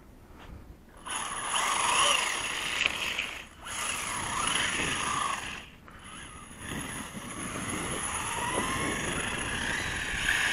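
Brushless electric motor of a Traxxas E-Revo RC truck on a 6-cell LiPo, driven hard: a high whine that rises and falls with the throttle, together with tyre and road noise. It starts about a second in and drops out briefly twice.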